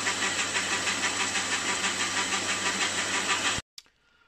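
Metal lathe running while its cutting tool turns down a bearing bush: a steady motor hum under a hiss with a fast, even pulse, which stops abruptly about three and a half seconds in.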